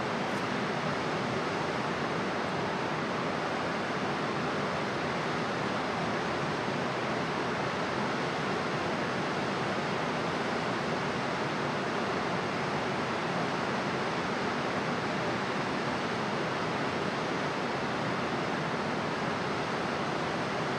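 Steady, even rush of running water, like a river or stream in full flow, with no change throughout.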